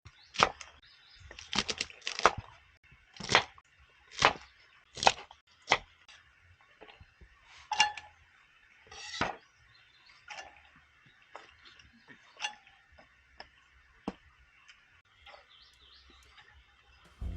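Irregular sharp clinks and knocks, hard objects struck together with a short ring, about a dozen firm ones in the first half and lighter taps after.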